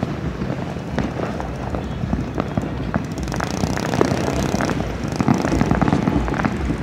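Fireworks going off: a dense stream of sharp cracks and bangs over a continuous rumble, thickening and getting louder about halfway through.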